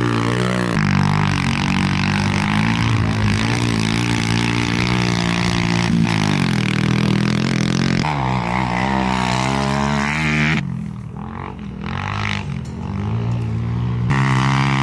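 Off-road vehicle engine running and revving as it laps a dirt track, its pitch rising and falling with the throttle. It goes quieter for about three seconds two-thirds of the way through, then comes back loud near the end.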